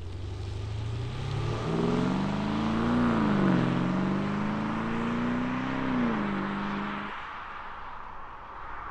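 Mercedes S580 4Matic's 4.0-litre twin-turbo V8 through a stainless-steel active cat-back exhaust with its valves closed, accelerating away. The engine note climbs, dips briefly about three seconds in, climbs again and holds, then drops away about seven seconds in.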